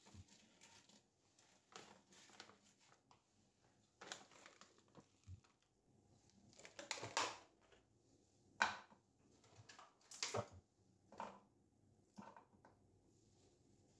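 Faint handling noises: a series of short rustles, crinkles and light knocks as food is handled and set out on a wooden board, loudest around the middle.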